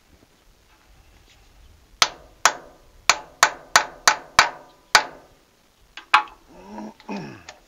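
A hand hammer strikes metal on the engine head of a 1924 Fordson Model F, knocking at a rust-seized spark plug to break it loose. There are eight sharp, ringing blows starting about two seconds in, roughly three a second, then two more a second later.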